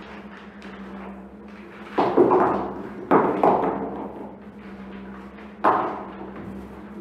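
Sudden heavy thuds with a ringing decay: a cluster of four from about two to three and a half seconds in, and one more near the end, over a steady low hum.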